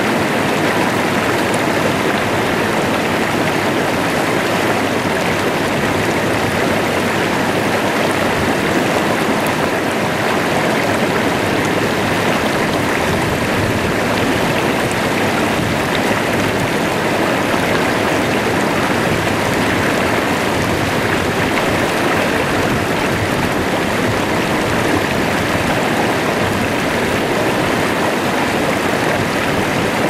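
Shallow, rocky stream rushing over boulders in small white-water riffles: a loud, steady rush of flowing water that does not change.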